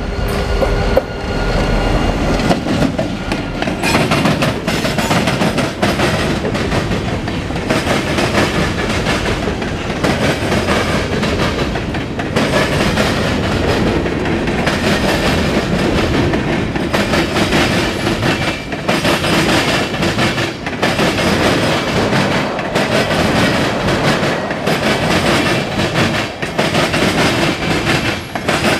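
CSX local freight train rolling past at close range: the diesel locomotive going by in the first seconds, then a long string of freight cars with a steady rumble and the clickety-clack of wheels over the rail joints.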